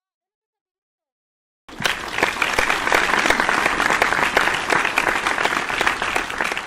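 Applause sound effect from the Quizizz game's winner reveal: it cuts in suddenly about two seconds in after silence, a dense patter of many hands clapping, and begins to fade near the end.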